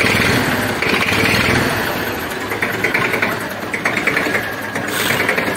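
1979 Massey Ferguson 35 tractor's diesel engine idling steadily after a full overhaul, running evenly without knocking.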